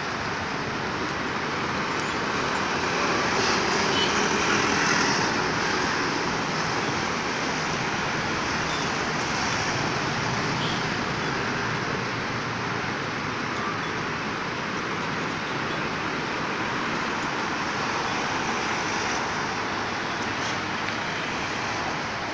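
Steady road traffic noise, swelling a little about four to five seconds in.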